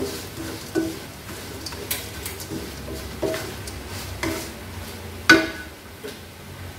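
Wooden spatula scraping and tossing sticky fried tempeh strips in a nonstick wok, about once a second, over a faint sizzle. The loudest knock comes about five seconds in.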